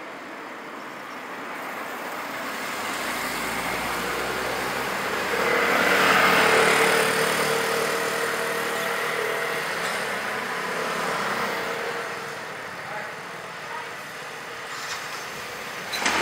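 Street traffic noise from a moving ride, with a motor scooter passing close about six seconds in: its engine drone swells and then fades.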